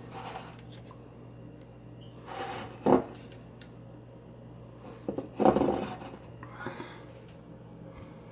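Rustling and handling noises with a few knocks, the loudest about three and five and a half seconds in, over a steady low hum.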